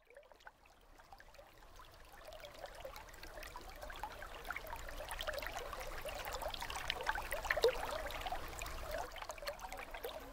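Small waterfall splashing and trickling into a rocky pool, fading in from silence over the first few seconds.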